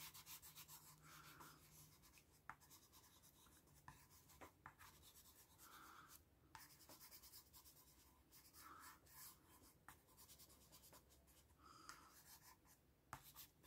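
Faint scratching of a coloured pencil shading on paper, in short strokes with scattered light ticks.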